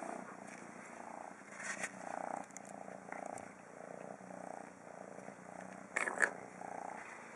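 Kitten purring close by, a soft even pulsing about twice a second. Near the end there is a brief, louder rustle.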